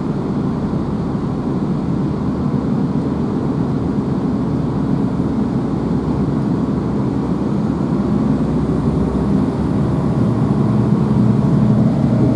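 A GWR Class 165 diesel multiple unit running along the line, heard from inside the passenger saloon: a steady low rumble of its underfloor diesel engine and wheels on the track, growing a little louder near the end.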